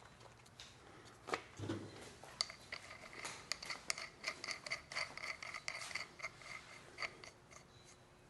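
Small metal parts clicking and rattling as a handle is fitted and tightened: a knock about a second and a half in, then a quick run of light metallic clicks with a faint ring that stops about seven seconds in.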